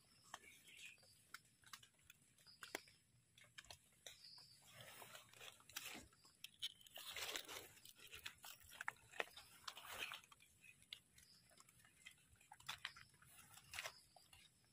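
Faint crackling and crunching of wet leaf litter and soil, with scattered small clicks, as a large white wild mushroom is pulled from the ground and handled.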